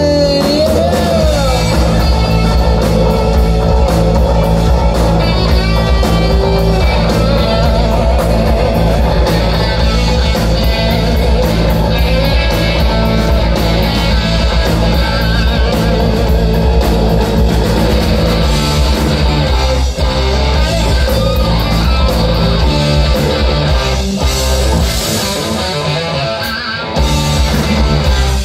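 Live rock band playing loud: distorted electric guitars, bass and drum kit, with a singer's voice in places. Near the end the bass and drums drop out for a moment before the full band comes back in.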